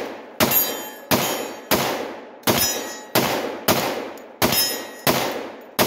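Glock 20 pistol in 10mm Auto fired fast in a steady string, about nine shots roughly two-thirds of a second apart, each trailing off in a short echo.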